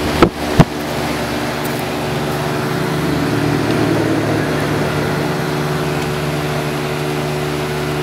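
Outdoor unit of a home-built R134a heat pump running in heating mode: the fan blows steadily under a hum of several steady tones from the variable-frequency-driven compressor. Two sharp knocks near the start.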